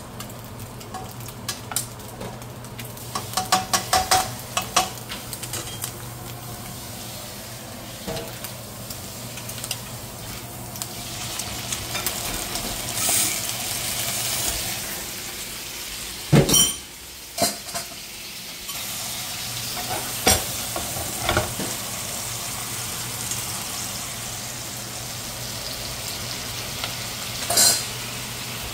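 Pork back ribs sizzling in a nonstick frying pan, with metal tongs clicking and scraping against the pan as the pieces are turned. After seasoning sauce goes in, the sizzle gets louder and denser, with a few sharper knocks of the tongs on the pan.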